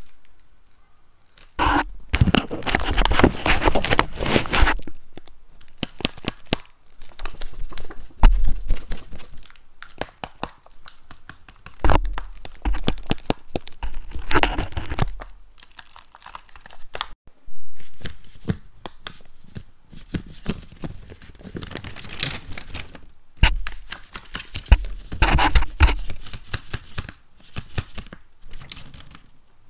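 Paper dragon puppets handled close to a microphone for ASMR: bouts of paper rustling and crinkling full of sharp clicks and taps, coming and going with quieter gaps between.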